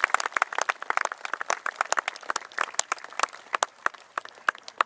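A small audience clapping, with individual claps easy to pick out. The clapping thins out to a few scattered claps near the end.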